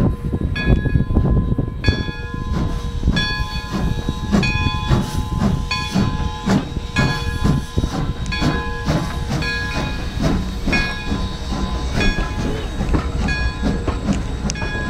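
Steam locomotive's bell ringing steadily, about two strokes a second, over the low rumble and steam hiss of the engine moving slowly.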